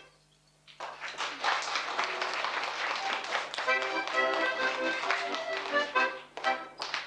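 Accordion playing a tune. It starts after a brief silence of under a second and dips briefly near the end.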